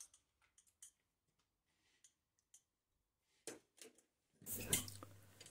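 Faint, scattered metallic clicks from hands working a metal lathe's handwheels and levers, with a louder clatter and a brief low hum about four and a half seconds in.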